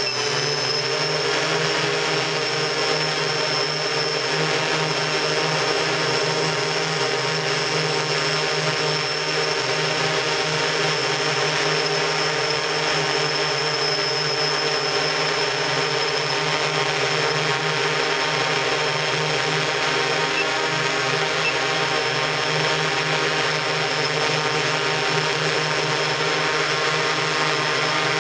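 Multirotor octocopter's eight electric motors and propellers droning steadily in a hover, heard from the camera carried on the craft itself: a loud chord of steady tones topped by a high whine.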